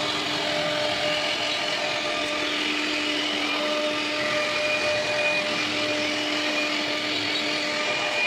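CNC router spindle running as its bit carves a relief panel in wood: steady machine noise with a whine whose tones drop in and out.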